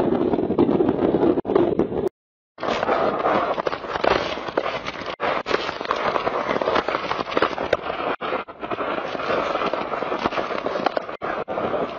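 Hurricane-force wind and wind-driven rain blasting against the microphone: a dense roar with constant crackling buffets. The sound cuts out completely for about half a second about two seconds in and comes back hissier.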